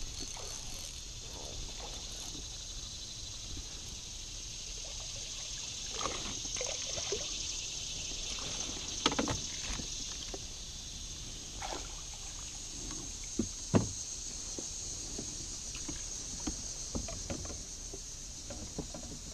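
Steady high chirring of insects, with scattered splashes and a few sharp knocks as a hooked fish is played at the surface beside a boat and netted; the loudest knocks come about nine seconds in and near fourteen seconds.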